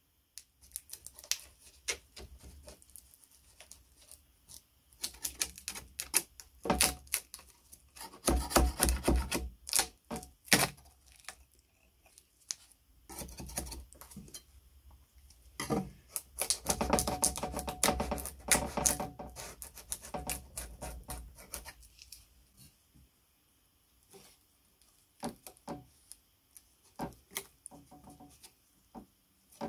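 Hand work in a workshop: scattered sharp clicks and taps, with two spells of fast, rattling clicking about eight and sixteen seconds in.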